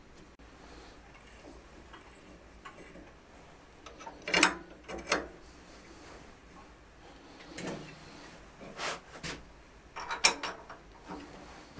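Short bursts of metallic clicking and rattling, in four or so clusters, as a lathe's three-jaw chuck and its indexing plate are turned and positioned by hand.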